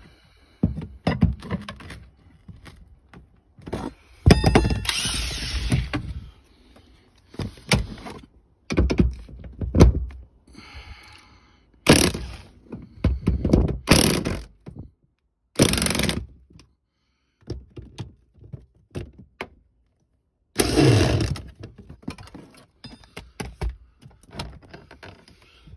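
Cordless impact wrench hammering in about half a dozen short bursts, a second or so each, at the 13 mm bolts holding a Land Rover Discovery 2 boot seat's tension spring, with knocks from the tool and the metal between bursts.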